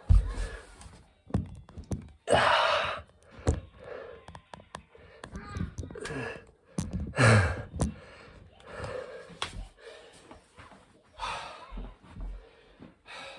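A man panting and gasping hard through a set of burpees, with a falling groan about seven seconds in. Dull thuds of hands and feet landing on the floor come in between.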